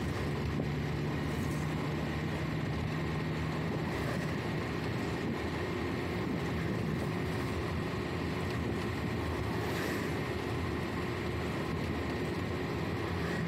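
Engine and road noise of a moving vehicle heard from inside the cabin: a steady drone with a low engine hum.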